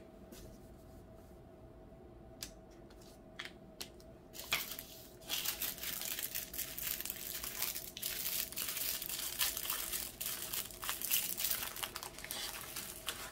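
Small plastic bags of diamond-painting drills being handled and sorted, crinkling. A few soft clicks at first, then steady dense crinkling from about four seconds in.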